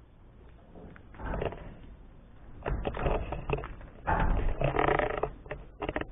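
Rummaging in a dumpster: several bursts of scraping and clattering as things are shifted about, the loudest about four seconds in.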